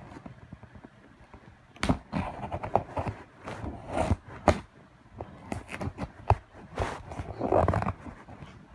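Toy packaging being worked open with hands and tools: irregular knocks, clicks and scraping, with a couple of longer rustling scrapes.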